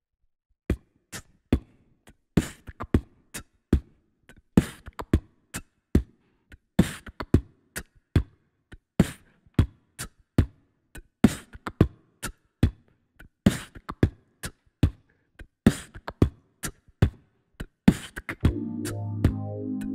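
Solo human beatbox into a handheld microphone: kick and hi-hat clicks in a steady groove, with a hissing snare sound about every two seconds. Near the end, sustained synthesizer chords with deep bass come in under the beat.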